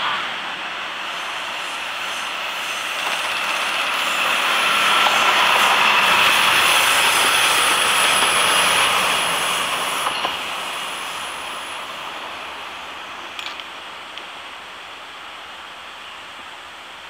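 JR DD51 diesel-hydraulic locomotive running light, without a train, as it passes by. Its engines and wheels grow louder to a peak about five to nine seconds in, then fade away, with a couple of sharp clicks as it recedes.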